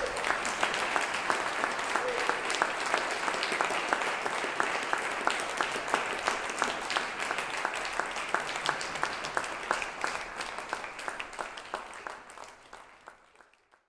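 Audience applauding, a dense steady patter of many hands clapping that dies away over the last couple of seconds.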